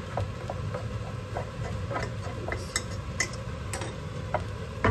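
Wooden spoon stirring and scraping a shredded chicken and sweet corn filling in a nonstick frying pan, with scattered light knocks of the spoon on the pan, over a steady low hum. The filling is being dry-fried on low heat.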